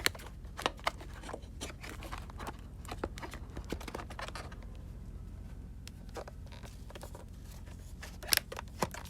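Hands pressing rubber wiring grommets into plastic grooves on a motorcycle: scattered small clicks, scrapes and rustles, with a few sharper clicks about a second in and near the end.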